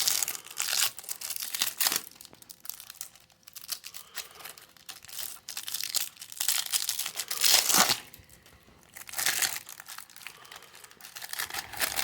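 Crinkling and tearing of a baseball card pack's wrapper as it is worked open by hand to pull out stuck cards, in irregular bursts with short pauses, the loudest a little past halfway.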